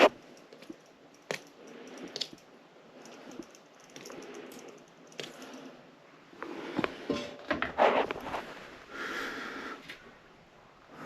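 Irregular clicks, knocks and scraping from hand-tool work on a bathroom exhaust fan's housing, as it is pried at to get the fan out. A longer rustle comes near the end.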